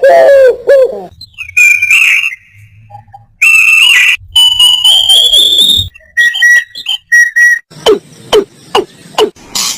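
Different birds calling one after another in clear whistled notes: a few bending calls, then long whistles, one rising in pitch, then short repeated whistles and a run of quick downward chirps near the end.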